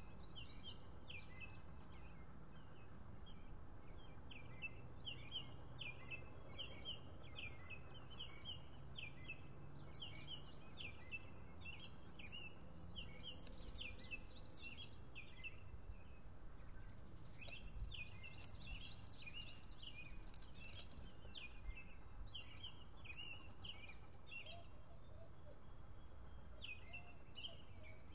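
Birds chirping, many short high calls in quick runs with a brief pause about halfway through, over a steady low background rumble.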